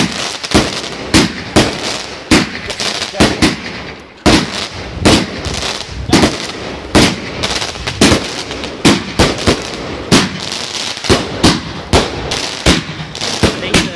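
Firework barrage going off: a rapid run of loud bangs, about two a second, with crackling from the bursting stars between them. The bangs ease off briefly about four seconds in.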